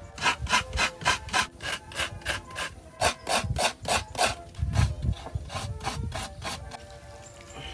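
Fresh coconut meat being grated from a half shell on a metal coconut scraper: repeated rasping strokes, about three a second, that stop near the end.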